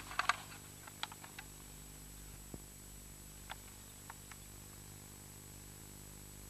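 Faint steady electrical hum and hiss of an old camcorder recording, with light clicks and taps from handling: a quick cluster in the first half-second, then a few single ticks over the next four seconds.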